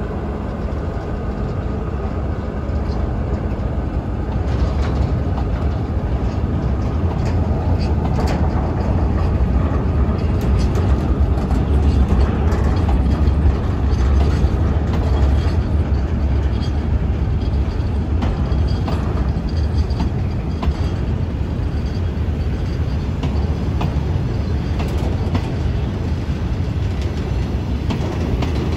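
Freight train of covered bogie box wagons rolling past close by, a steady low rumble of wheels on rail with scattered clicks and knocks from the wagons and rail joints. It grows louder toward the middle and eases slightly near the end.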